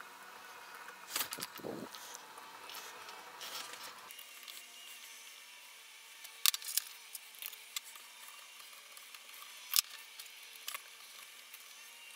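Light scattered clicks and ticks of a multitool screwdriver bit working the head screws as the finned cylinder head of a small air compressor is screwed back on, with two sharper clicks, one just past the middle and one about ten seconds in.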